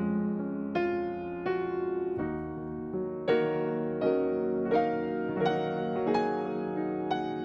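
Background piano music: a slow melody of single notes and chords, a new one struck about every three-quarters of a second.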